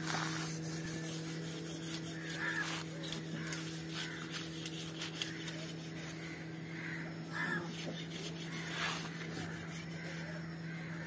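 Street fish-market background: a steady low hum, scattered knocks, and three short harsh calls.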